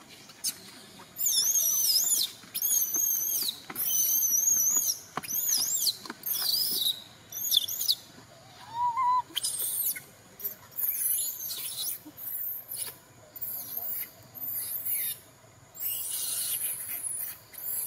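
Infant long-tailed macaque crying: high, warbling squeals about a second each, repeated over and over with short gaps, the cries of a baby wanting to nurse.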